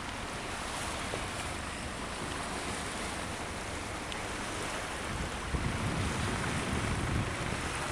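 Steady rushing of water and wind as a sailboat moves through harbour water. Wind buffets the microphone harder, with a low rumble, a little past halfway through.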